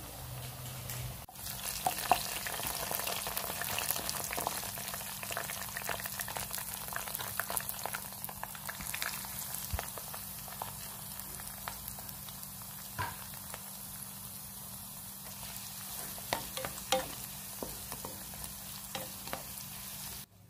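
Button mushrooms, then chopped garlic and chilli, frying in coconut oil in a pan: a steady sizzle full of small crackling pops, with a spatula stirring and knocking against the pan. The sizzle gets louder about a second and a half in.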